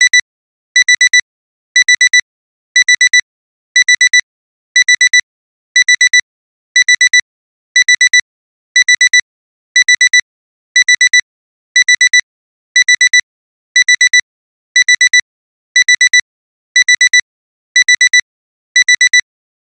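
Alarm clock's electronic alarm beeping, in quick bursts of four high beeps repeating about once a second without letup: the alarm signalling that the timer has finished.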